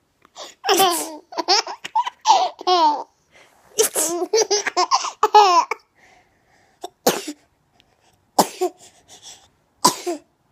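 A child laughing hard in several bursts, then three short, sudden sneezes about a second and a half apart.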